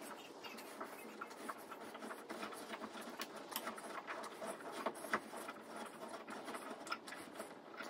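Hand tap turned in a tap wrench, cutting tapered threads into a drilled hole in galvanized steel pipe. It gives faint, irregular metallic scraping and small clicks as the tap bites and is worked back and forth.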